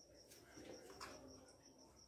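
Near silence: faint room tone with a thin high-pitched pulsing whine and a couple of soft clicks.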